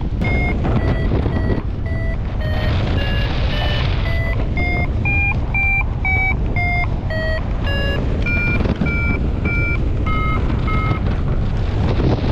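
Paragliding variometer's climb tone: short beeps about two a second, rising in pitch toward the middle, then dropping lower and stopping near the end, the pitch following the strength of the lift in the thermal. Wind rushing over the microphone underneath.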